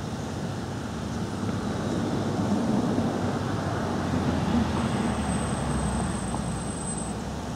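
Low background rumble of distant traffic, swelling about two seconds in and easing off near the end, with a faint thin high whine through the second half.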